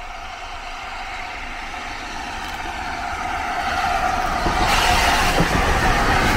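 LNER A4 Pacific steam locomotive Sir Nigel Gresley running past with its train. It grows steadily louder as it approaches and is at its loudest from about four and a half seconds in, as it passes close by.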